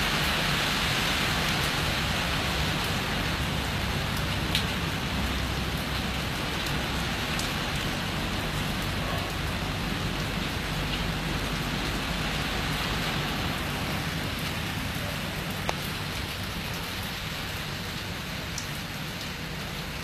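Steady rain falling and pattering on surfaces, easing off so that its hiss slowly fades, with a couple of sharp single ticks.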